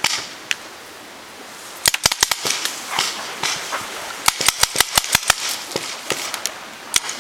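Paintball markers firing: quick bursts of sharp pops, several a second, starting about two seconds in and going on in clusters.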